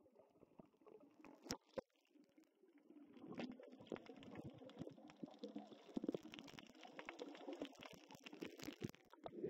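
Muffled sound of seawater heard with the camera underwater: a faint low rumbling and gurgling of moving water, stronger from about three seconds in, with scattered small clicks and knocks.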